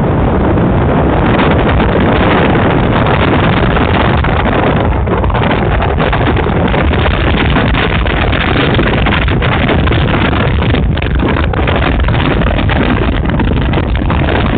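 Steady, loud rush of wind and road noise from a car travelling at highway speed, with wind buffeting the microphone.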